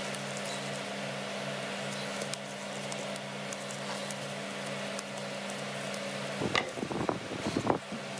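Steady low hum of a fan or appliance under light crinkling as gloved hands handle plastic-wrapped produce; about six and a half seconds in, a louder spell of rustling and crinkling lasts just over a second.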